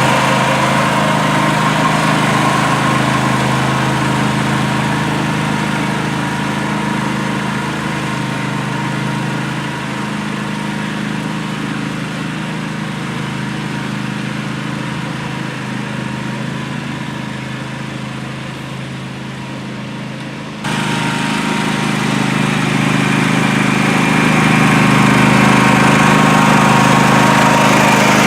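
Riding lawn mower engine running steadily; it fades slightly and then jumps abruptly back to a louder level about twenty seconds in.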